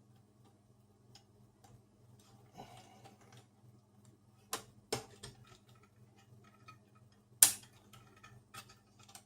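Small sharp clicks and taps of metal tweezers on a plastic model-train coupler as it is worked out of a freight wagon's coupler pocket: scattered clicks, a pair about halfway through and the loudest near the end, over a faint steady hum.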